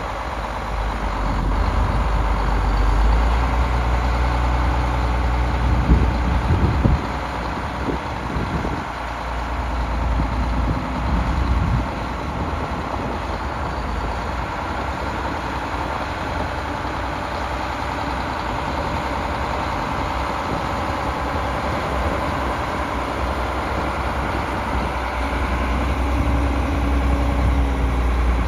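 2013 Case IH Quadtrac 500 tracked tractor running as it drives across a field, a steady heavy diesel rumble with a faint whine from the drive and tracks. A few louder low thumps come about six to seven seconds in.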